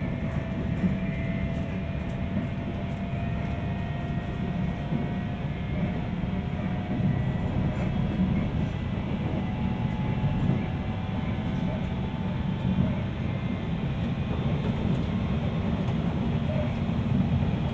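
Cabin running noise of a JR East 719 series electric train under way: a steady low rumble with a faint whine that rises slightly in pitch over the first several seconds. This is the jet-like sound that marks this car as an 'odd-noise car', though the recordist wonders whether it is simply normal for the 719 series.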